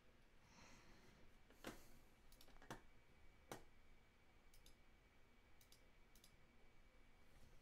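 Near silence with a few soft clicks from working a computer at a desk: three clearer ones about a second apart in the first half, then a few fainter ticks.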